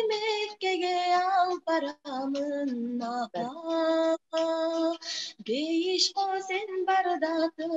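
A young woman singing solo, unaccompanied, into a handheld microphone, holding long melodic notes with brief breaks for breath.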